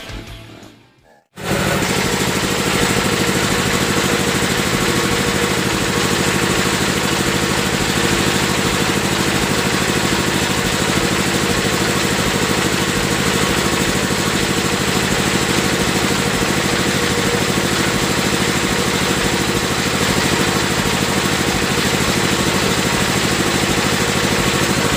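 Music fades out to a moment of silence, then a small engine cuts in and runs steadily at one constant speed.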